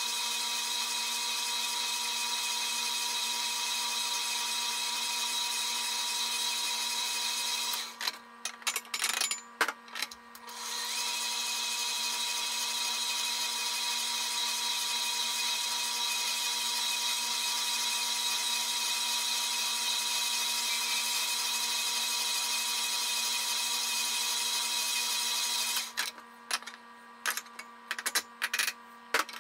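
KitchenAid bowl-lift stand mixer's motor running at a steady pitch, a hum of several fixed tones, as its dough hook kneads bread dough. The motor sound drops out about eight seconds in, with a few scattered clicks and knocks, and comes back about two seconds later. It drops out again near the end.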